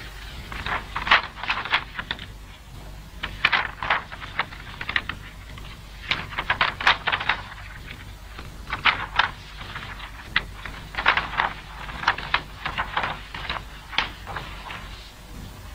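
Large sheets of drawing paper being handled, turned over and shuffled on a table, crackling and rustling in repeated short bursts.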